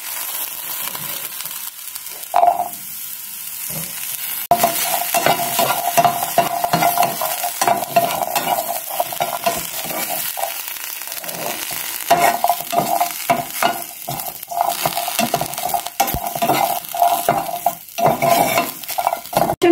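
Green chillies and garlic cloves sizzling steadily as they fry in a frying pan, stirred with a spatula that scrapes against the pan in short, repeated strokes.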